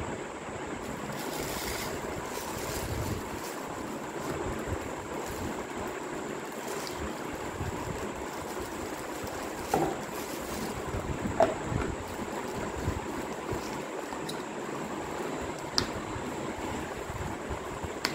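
Steady background hiss with a few light knocks and clicks as a camera-lens-shaped coffee mug and its lid are handled and set on a table; the sharpest knocks come about ten and eleven and a half seconds in.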